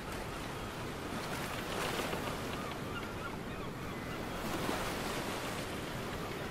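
Ocean waves washing in a steady rush of surf that swells about two seconds in and again near five seconds.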